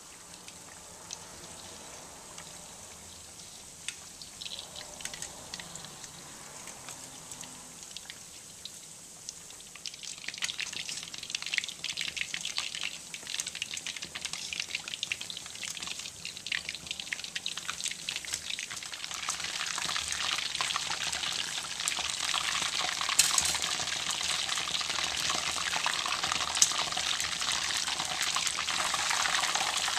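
Tempura-battered chicken wings deep-frying in hot oil: a dense crackling sizzle, soft at first, that grows louder about ten seconds in and louder again near twenty seconds. Two sharp clicks stand out near the end.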